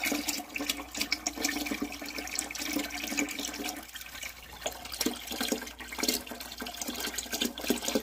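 Water running steadily out of a steam boiler's drain into a bucket as the boiler is drained down.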